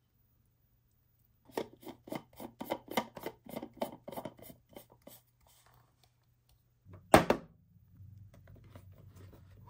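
Handling of a stainless-steel food jar and its plastic lid: a rapid run of sharp scraping clicks, about three or four a second, lasting some four seconds. About seven seconds in comes a single loud knock.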